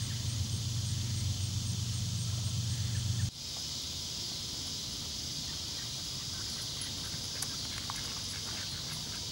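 Outdoor pond ambience: a low rumble with a faint regular high ticking for about three seconds. After a sudden change, a steady high-pitched chorus of crickets or similar insects takes over, with a few faint clicks.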